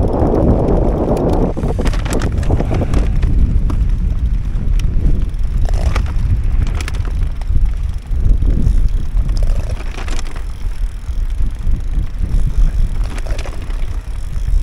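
Wind buffeting the microphone in a heavy, low rumble, with scattered sharp taps and splashes.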